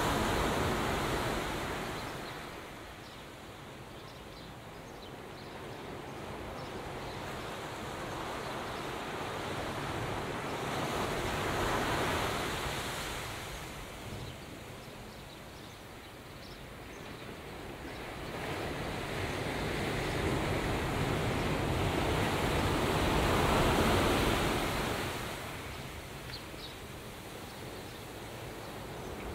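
A rushing, surf-like noise that swells and fades slowly, peaking about every twelve seconds.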